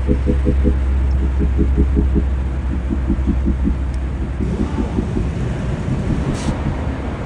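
Steady low machine rumble with a pulsing hum that comes in short groups of quick beats; the low rumble eases about halfway. A brief hiss comes about six seconds in.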